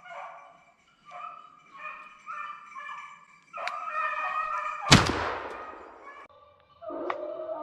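Beagles baying on a snowshoe hare's trail in short broken calls. About five seconds in, a single loud 20-gauge shotgun shot rings out and echoes away. The baying resumes near the end.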